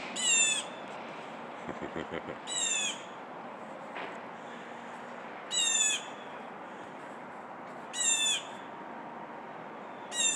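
A bird's alarm call, repeated five times about every two and a half seconds; each call is short and high, falling slightly in pitch. It is an alert being sent out, with a cat nearby.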